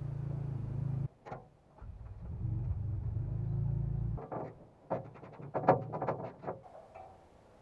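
A low, steady hum that cuts out about a second in, comes back, and stops abruptly just past four seconds. It is followed by a few seconds of light clicks and taps from hands working cable against a harvester's sheet-metal access hatch.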